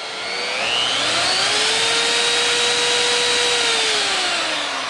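Hammerhead 10-amp variable-speed plunge router running free with no load, its motor whine rising over the first second and a half as the speed dial is turned up. It holds steady at the higher speed, then falls again as the speed is turned back down near the end.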